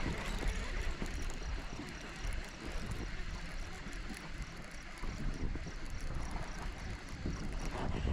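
Wind buffeting the microphone in uneven low rumbling gusts, with light water sounds around a kayak on open water.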